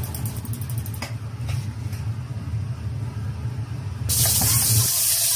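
A steady low hum, then about four seconds in a loud, even sizzle starts suddenly as pork goes into a hot, wet wok.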